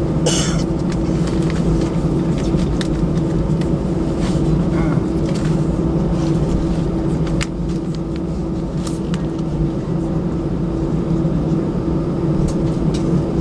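Jet airliner engines heard from inside the passenger cabin: a loud, steady drone with a low rumble under two held tones, and scattered small rattles and clicks.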